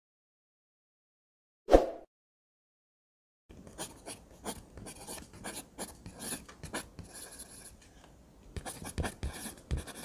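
Silence, then a single short thump about two seconds in. From about three and a half seconds on comes an irregular crackling rustle with scattered clicks: animals scuffling in dry leaf litter.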